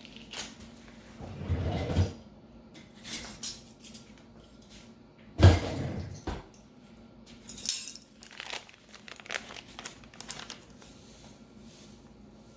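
Kitchen utensils and containers being handled, with scattered clinks and knocks and a loud thud about halfway through.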